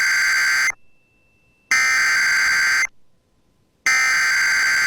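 Emergency Alert System SAME header: three bursts of digital data tones, each a little over a second long with about a second's gap between them. This coded header opens a National Weather Service severe thunderstorm warning.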